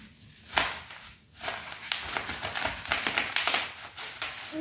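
A sharp knock about half a second in, then plastic packaging rustling and crinkling as it is handled, with many quick crackles for about three seconds.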